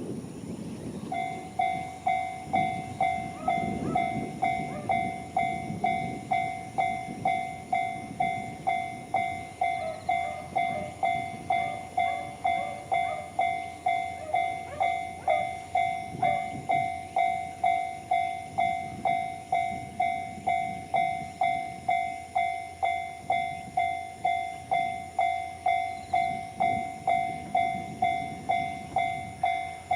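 Japanese level-crossing warning bell sounding the standard JR electronic tone. It starts about a second in and then rings steadily at about two strokes a second.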